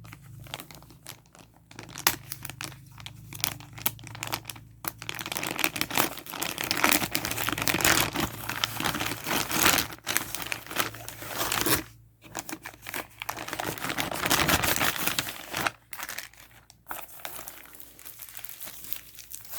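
Packaging of a phone-repair kit being handled and pulled apart: irregular crinkling and tearing in stretches, with a few short pauses.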